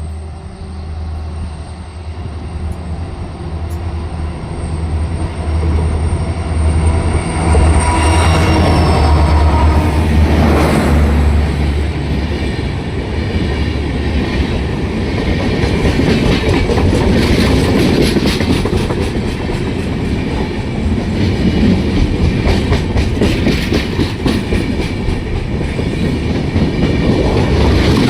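Indian Railways passenger train pulling into a station. First comes the deep, steady hum of the locomotive drawing up and passing, getting louder about seven seconds in. Then the coaches roll by with a continuous clatter of wheels over the rail joints.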